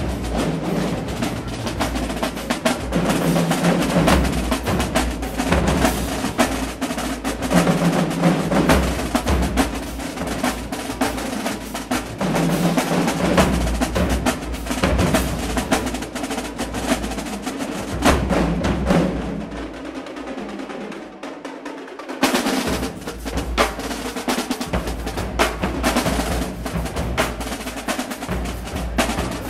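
Marching band drumline playing a fast cadence on snare drums and marching bass drums. About twenty seconds in the bass drums drop out for a couple of seconds, then the full line comes back in with a hit.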